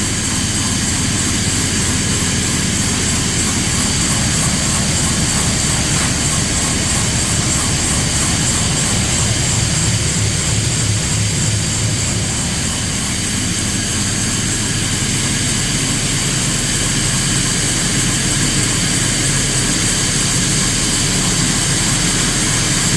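Farm feed mixer (about a 2-ton mixer) running steadily, a constant loud mechanical drone with hiss, while it is loaded with roasted soybeans for creep feed.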